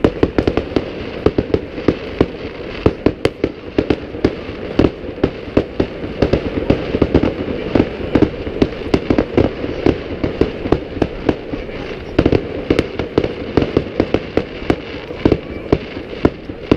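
Fireworks going off in a continuous barrage: sharp bangs and pops, several a second, over a constant din of further explosions.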